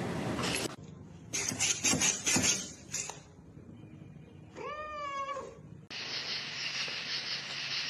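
A domestic cat meowing once, a single drawn-out meow that rises and then falls in pitch, about five seconds in. It is preceded by a quick cluster of short, loud knocks or rustles, and a steady hiss of background noise follows from about six seconds on.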